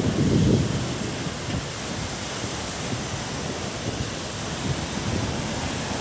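Hurricane eyewall wind and rain: a steady rushing hiss, with a heavy gust buffeting the microphone in the first half-second.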